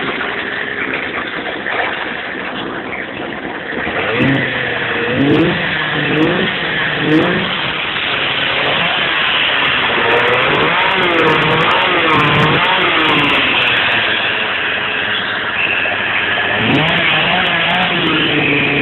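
Small two-stroke chainsaw engine driving a homemade go-kart, running steadily, then revved up and down over and over from about four seconds in.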